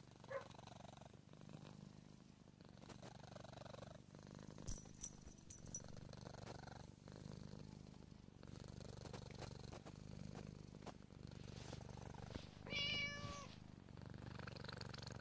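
Seal point Siamese cat purring steadily while being stroked, with one short meow near the end.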